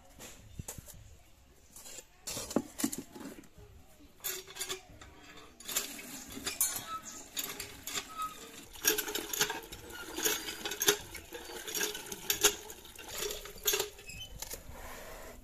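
Cast-iron hand pump being worked: its handle strokes clank in a steady rhythm while water pours from the spout into a plastic bucket. A steel bowl clatters as it is set down about two seconds in.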